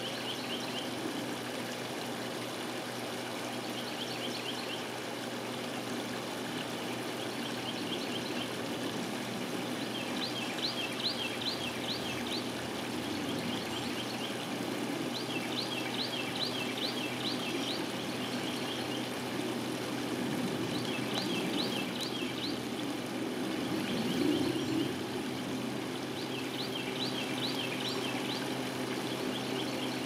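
Shallow creek water splashing and trickling steadily over small rock-ledge waterfalls. A songbird repeatedly sings a short, rapid series of high notes every few seconds.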